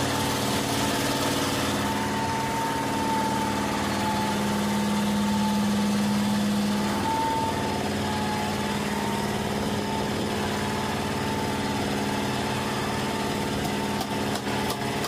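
A fishing boat's engine running steadily at a constant speed. A few knocks of a knife chopping bait on a wooden board come near the end.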